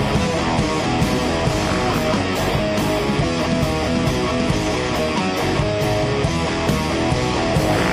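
Background rock music with guitar, at a steady loud level.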